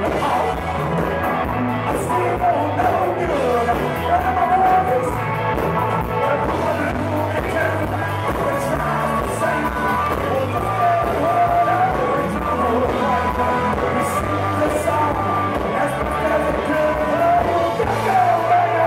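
Live blues-rock band playing, with electric bass under the groove and a male singer's voice over the music.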